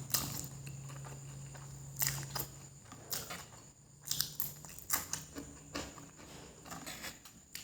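Close-miked chewing of fried noodles: irregular wet mouth clicks and smacks. A low hum underneath fades out about three seconds in.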